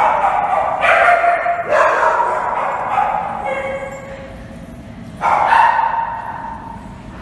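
A dog giving long, drawn-out yowling calls: three in quick succession, then another about five seconds in, each starting abruptly and sliding slightly down in pitch.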